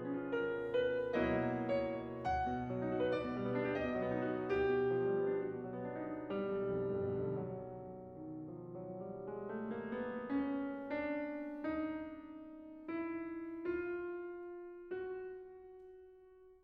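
Slow background piano music. Dense chords give way, about two-thirds of the way in, to single notes struck about once a second, and the last note fades out at the end.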